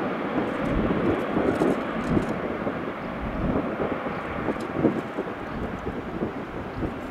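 Boeing 737-800's CFM56 turbofan engines at takeoff thrust during the takeoff roll: a steady rush of jet noise, easing a little near the end.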